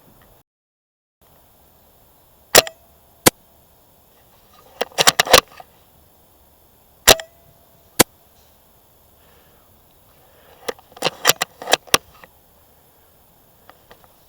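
Spring-powered bolt-action airsoft sniper rifle (SSG10) firing twice, about four and a half seconds apart. Each shot is a sharp crack with a brief ringing and is followed by a single click. Quick runs of mechanical clacks, the bolt being cycled, come before the second shot and after it.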